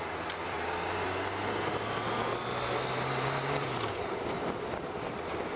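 Motorcycle engine running under steady wind and road noise as the bike rides along; the low engine note rises slightly, then drops away about four seconds in. A brief click just after the start.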